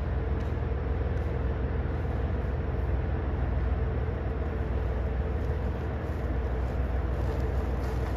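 JR Hokkaido diesel limited-express railcar running steadily: a low rumble with a steady hum above it.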